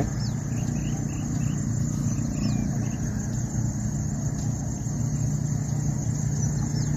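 Steady low hum of outdoor background noise, with a few faint, short high chirps now and then.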